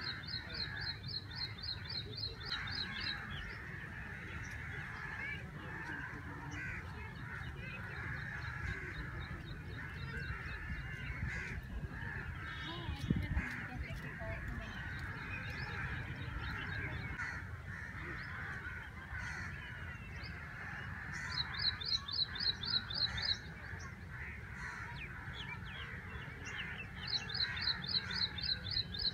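Dawn bird chorus: a dense mix of calls, with a rapid series of high, evenly spaced notes that comes three times, at the start, about three-quarters through and near the end, over a low steady rumble.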